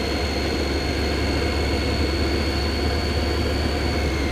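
Triumph Street Triple 675's inline three-cylinder engine running while the motorcycle rides at a steady pace, a deep rumble under a steady high whine.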